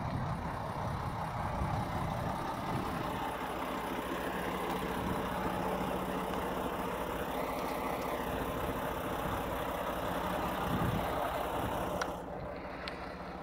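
A vehicle engine idling steadily with a constant low hum. About twelve seconds in there is a click, and after it the sound is quieter and duller.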